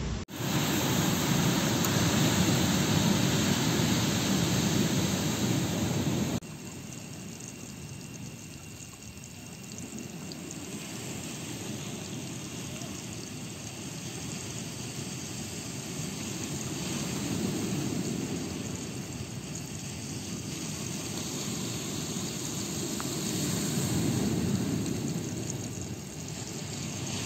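Steady rushing roar of wind and ocean surf, heavy at first with wind buffeting the microphone, then quieter and slowly swelling and easing like waves rolling in.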